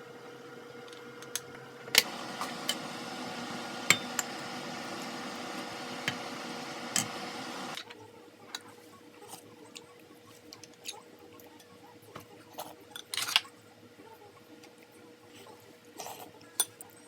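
Kitchenware clinking and knocking: dishes, pots and utensils handled in short sharp strikes. A steady rushing noise starts about two seconds in and stops suddenly near eight seconds; sparser clinks and taps follow.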